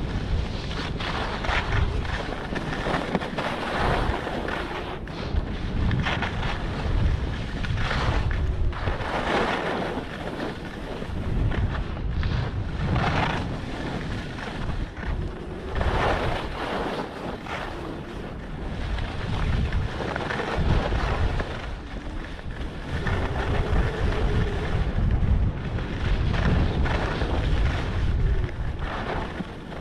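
Wind rumbling on the microphone of a camera carried by a moving skier, with the hiss and scrape of skis on packed snow swelling and fading every two seconds or so as turns are carved.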